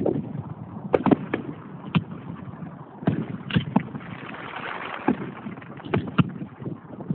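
Aerial fireworks going off: a string of sharp bangs and pops, about a dozen spread irregularly, with a stretch of hissing around the middle.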